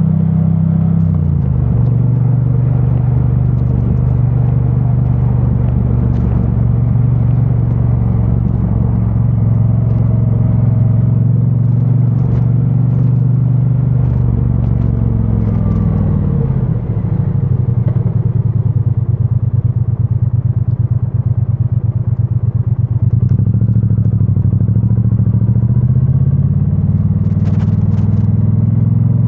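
2022 Triumph Bonneville T100's 900 cc parallel-twin engine through its stock exhaust, heard while riding. The engine note falls as the bike slows about halfway through, then runs low with a lumpy, even pulse for several seconds, then rises again as it pulls away.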